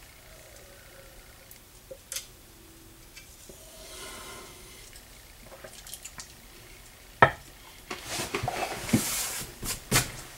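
Faint room tone, then a sharp knock about seven seconds in, followed by a couple of seconds of rustling, hissing and small clinks of things being handled.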